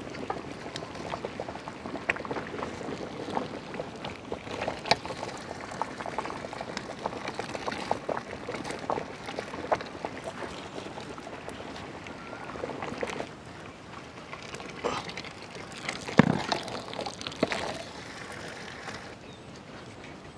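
Water pouring and dripping off ladlefuls of parboiled basmati rice lifted from a pot of boiling water, with the water bubbling and the metal ladle scraping and knocking against the pot rims now and then. A louder thump comes about 16 seconds in.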